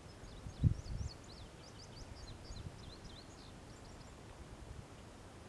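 A songbird singing a quick string of short, high, sliding chirps that stops after about three and a half seconds. Two low thumps come about a second in; the first is the loudest sound.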